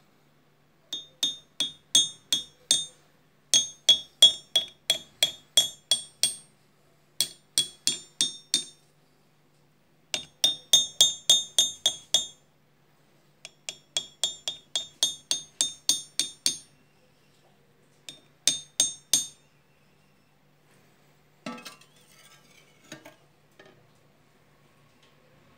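A steel knife blade tapped repeatedly on a metallic meteorite specimen. Each tap gives a bright, ringing metallic clink, in quick runs of about four taps a second with short pauses between runs. A softer handling rustle comes near the end.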